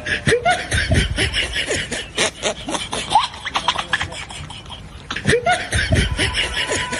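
Snickering, giggling laughter over a fast clicking patter. The same stretch of sound repeats about five seconds later, as in a looped comedy sound track.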